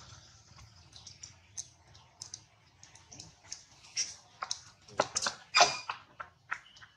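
Irregular small clicks and crackles from a baby macaque handling and biting a fruit among grass and dry leaves, with a few louder snaps about five seconds in.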